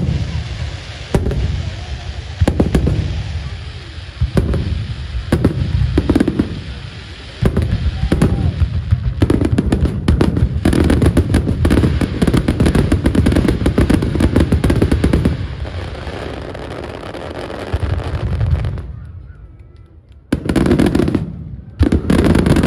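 Aerial firework shells bursting one after another, thickening about seven seconds in into a dense, continuous crackling barrage that lasts several seconds before dying away. Two more loud bursts come near the end.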